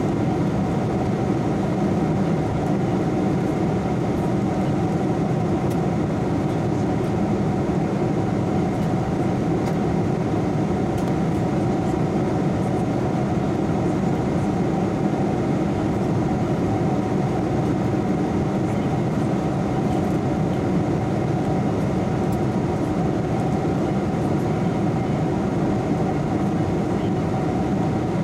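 Steady cabin noise of an airliner in cruise: the even hum of the jet engines and rushing air, heaviest in the low and middle range, with a few faint steady tones above it.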